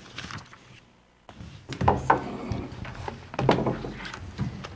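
Scattered knocks, thuds and rustling of people settling at a council desk: chairs shifted and papers and objects handled close to the desk microphones. The sound drops out briefly about a second in.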